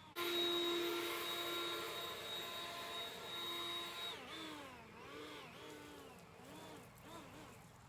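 Cordless electric leaf blower running. It jumps to a steady high whine right at the start, then from about four seconds in its pitch drops and rises again several times as the trigger is eased and squeezed.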